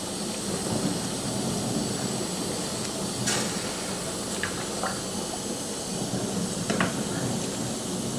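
A large stainless-steel pot of court-bouillon (vegetable, wine and vinegar stock) simmering on the stove: a steady bubbling hiss with a few faint ticks.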